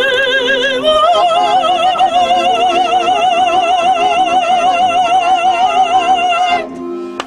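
A woman sings a traditional Kazakh song in a strong voice with wide vibrato, over a steady accordion accompaniment. About a second in she steps up to one long high note, held until near the end.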